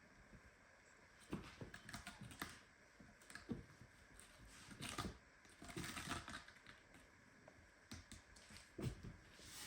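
Faint, irregular soft clicks and short rustles, with no meow, from the mother cat and her kittens stirring in their nest.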